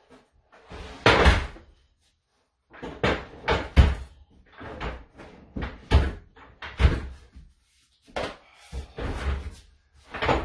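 Wooden kitchen base cabinet boxes being shifted and bumped into position by hand: a string of irregular knocks and thuds, about a dozen, the loudest about a second in.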